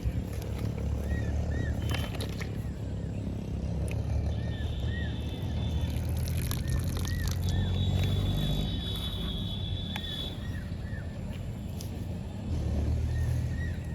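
Outdoor ambience: a steady low rumble with short chirping calls repeating every second or so, and a high steady whine for a few seconds near the middle.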